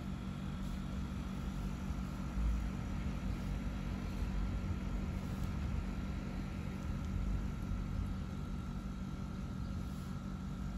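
A steady low mechanical hum with a faint steady high tone above it.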